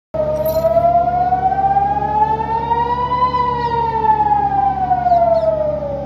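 Civil-defence rocket-alert siren wailing, its pitch rising slowly for about three seconds and then falling, with a fainter second siren beneath it and a steady low rumble. It is the warning of an incoming rocket salvo.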